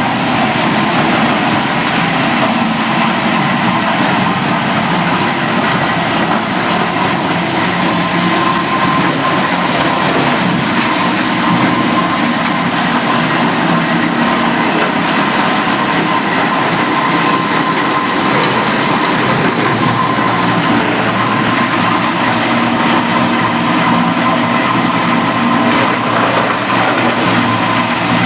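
Plastic recycling machinery running steadily, a loud continuous mechanical din with a faint steady whine through it.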